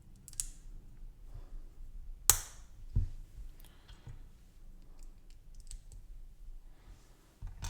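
Small plastic LEGO pieces clicking and snapping together as they are handled and pressed into a sub-build. There is one sharp snap about two seconds in, a second one under a second later, and faint ticks of pieces being handled around them.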